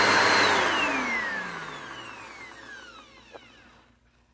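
Upright vacuum cleaner running on a rubber wristband fitted as a temporary drive belt, its motor whining loudly and then winding down: about half a second in the whine begins to fall in pitch and fades away over about three seconds. A faint click near the end.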